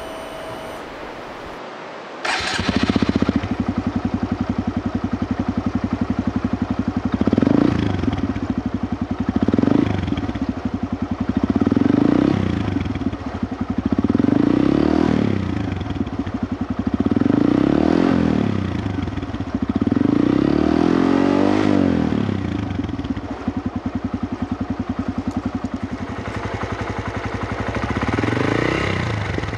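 Honda Grom's 125 cc single-cylinder engine, breathing through an aftermarket stainless silencer with its baffle fitted, starts suddenly about two seconds in and settles to idle in neutral. It is then blipped about seven times, each rev rising and dropping back to idle, the longest one near the middle and a smaller one near the end.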